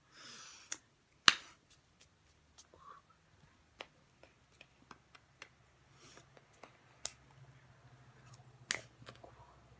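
Scattered sharp clicks and slaps of hands striking each other while signing, a handful of them spread unevenly, the loudest a little over a second in. A brief hiss at the start, and a faint steady low hum underneath.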